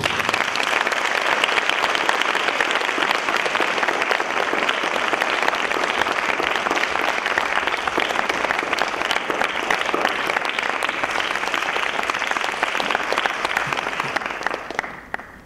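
Audience applauding, a dense patter of many hands clapping that fades away near the end.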